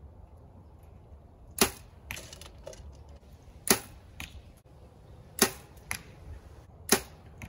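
Compound bow shot four times, each release a sharp snap of string and limbs. About half a second after each shot comes a fainter knock as the arrow strikes the distant target.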